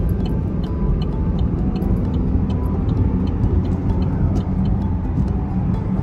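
Steady road noise inside a moving car on a snowy highway: a continuous low rumble of tyres and engine, with faint, irregular light ticks.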